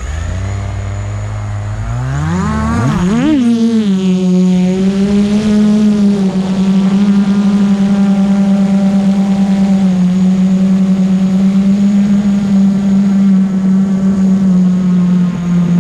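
FPV quadcopter's motors and propellers buzzing. The pitch climbs as the throttle goes up about two to three seconds in, then holds at a steady high-revving drone.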